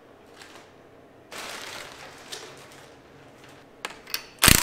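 Plastic sheeting crinkling as it is pulled off a bare engine block, then near the end a short, loud burst from a cordless power tool on the crankshaft bolt.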